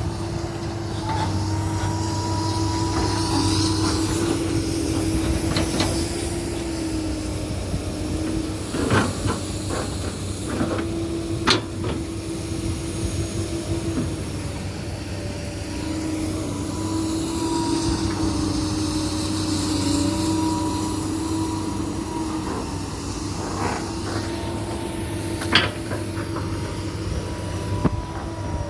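Komatsu PC200 hydraulic excavator's diesel engine running steadily while levelling ground, its note drifting slightly in pitch as the load changes. A few sharp knocks are heard, about four in all.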